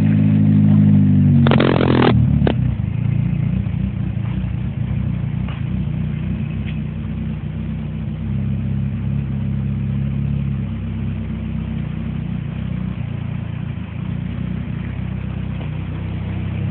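Nissan 240SX engine running, held at raised revs and then dropping back to a steady idle about two seconds in, with a short burst of noise as the revs fall. The car has an exhaust leak.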